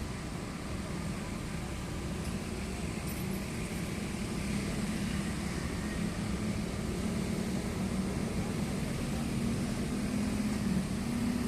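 Diesel engine of a Komatsu excavator running steadily, getting a little louder toward the end.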